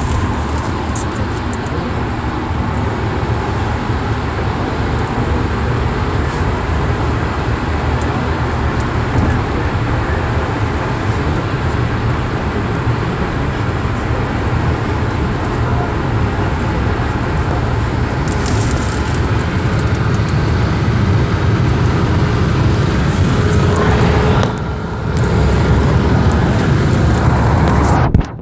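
Road and wind noise inside a car driving at motorway speed: a steady, loud rumble and hiss that dips briefly about 24 seconds in.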